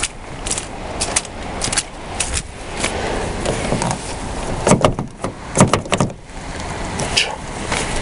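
Footsteps on slushy pavement, about two steps a second, then a car's outside door handle pulled and snapping back with several loud plastic-and-metal clacks about five and six seconds in.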